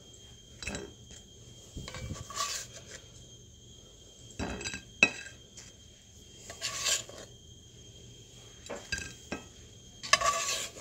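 A black slotted spatula scraping inside a cast iron Dutch oven and knocking against a ceramic plate as biscuits are lifted out and set down: a series of short scrapes and clinks, the longest and loudest near the end.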